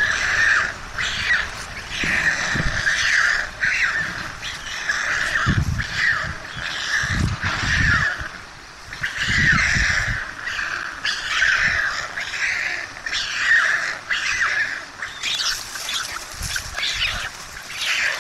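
Young white storks calling over and over with hoarse, wheezy begging calls as they are fed on the nest, with several low thumps in the middle.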